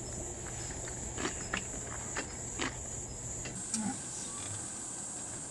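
Crickets chirring steadily in a continuous high-pitched drone. A few scattered sharp clicks come through between about one and three seconds in.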